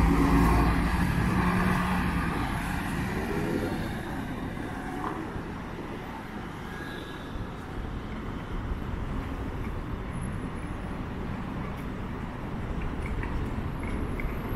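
City street traffic: a large vehicle's engine running close by at first, fading away over the first few seconds, then a steady hum of passing traffic.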